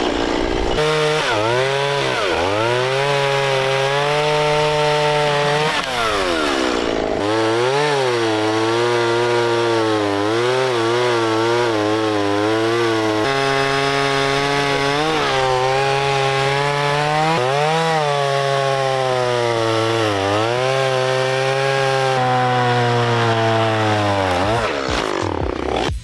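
Chainsaw running at high revs, cutting through a downed tree trunk. Its note sags again and again as the chain bites into the wood and climbs back each time, with the throttle let off and opened again partway through.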